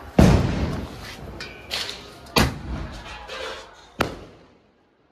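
Ground-lit tube sky-shot firework launching with a sudden whoosh that trails off over about a second, then two sharp bangs about two and four seconds in as it bursts overhead.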